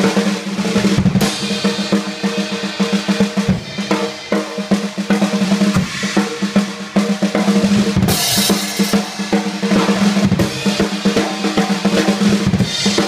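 Acoustic drum kit played in a solo: rapid strokes across the snare, toms and bass drum, with the drums ringing under the hits. Cymbal crashes come about a second in, around eight seconds in and near the end.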